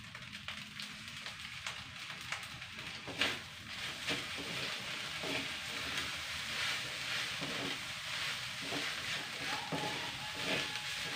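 Fried rice sizzling in a wok while a spatula stirs and scrapes it against the pan, with repeated short scrapes and knocks over a steady hiss. One sharper, louder knock about three seconds in.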